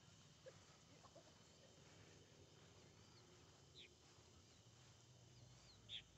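Near silence with a few faint, short bird chirps and thin high whistles, the clearest one near the end.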